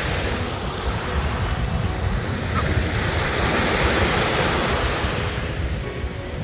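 Sea waves breaking and washing up on a sandy beach, one wash swelling and fading in the middle, with wind rumbling on the microphone.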